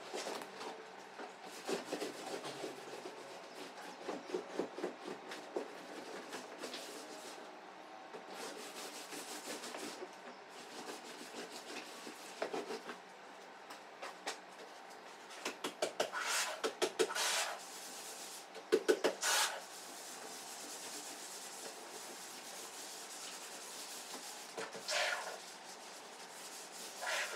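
A gloved hand and cloth rubbing and scrubbing sofa upholstery with cream cleanser, with scattered small knocks and squeaks; a few louder bursts of rubbing come past the middle.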